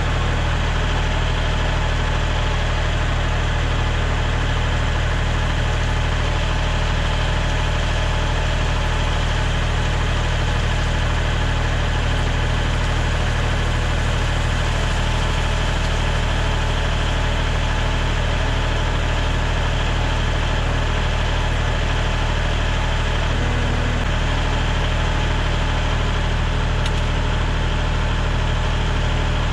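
A small engine running steadily at one even speed, with no change in pitch throughout.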